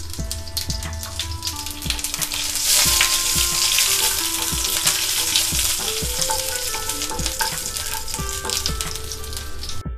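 Tempering in hot oil: fresh curry leaves and dried red chillies sizzling and spattering with mustard seeds in a nonstick pan, stirred with a wooden spatula. The sizzle swells about two to three seconds in and stays strong, crackling throughout.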